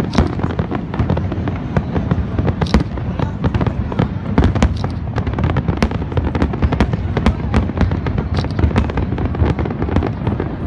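Aerial fireworks shells bursting in a continuous barrage: many overlapping bursts make a steady low rumble, broken several times a second by sharp cracks.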